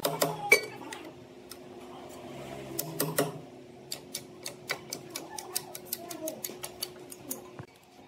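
Sharp knocks and clicks: two loud knocks in the first second and a cluster about three seconds in, then a regular run of about four clicks a second that stops a little after seven seconds, over a faint steady hum.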